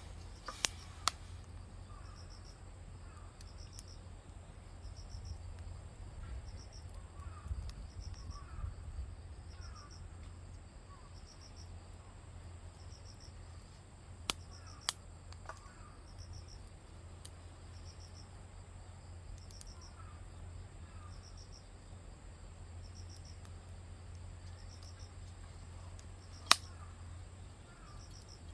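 Insects calling steadily outdoors: high chirps that repeat about once a second over a continuous high buzz, with a low steady hum underneath. A few sharp clicks or knocks cut through, the loudest near the end.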